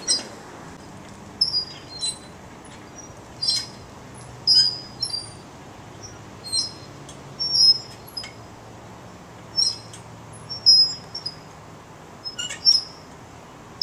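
Playground swing squeaking as it swings back and forth under a person: short, high squeaks, often two or three together, every second or two.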